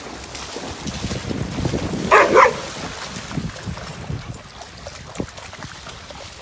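Dogs splashing and wading through a shallow pool, with one dog giving two quick barks a little past two seconds in.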